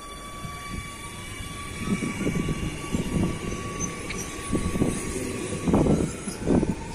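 Electric train passing, with a steady high whine over a rumble that gets louder about two seconds in.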